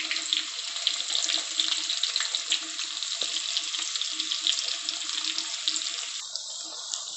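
Chopped onion sizzling in hot oil in a steel kadhai: a steady crackling hiss.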